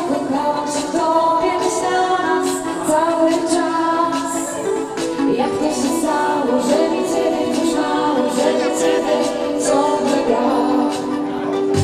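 Pop song playing: a sung melody over a steady beat.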